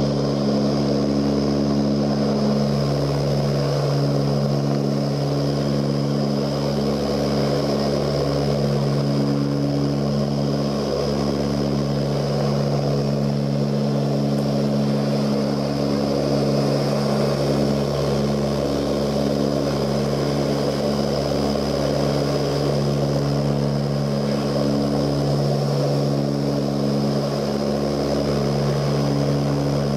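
Cabin drone of an Ilyushin Il-18's four Ivchenko AI-20 turboprop engines and propellers in flight: a steady, unbroken rush with several low humming propeller tones, some of which waver slightly in strength.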